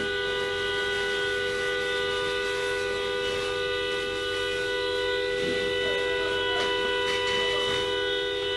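A steady horn-like tone of several pitches, held without a break over a rushing hiss.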